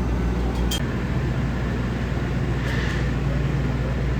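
Steady low outdoor rumble with a constant low hum, a couple of light clicks under a second in and a brief hiss near the three-second mark.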